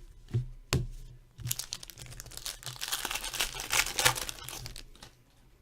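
Two sharp taps, then about three and a half seconds of dense crinkling and tearing: a trading-card pack wrapper being ripped open and crumpled.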